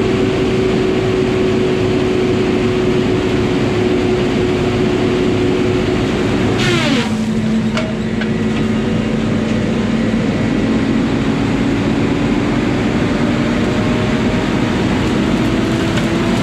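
An engine running steadily at high speed. About seven seconds in there is a sharp crack and the engine's pitch drops suddenly, then slowly climbs back up.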